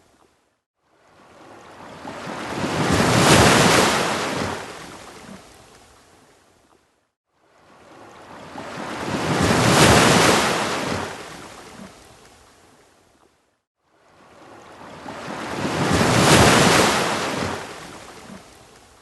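Ocean waves breaking on a beach, three in turn, each building over about two seconds to a peak and then washing back and fading, with a short near-silent pause before the next.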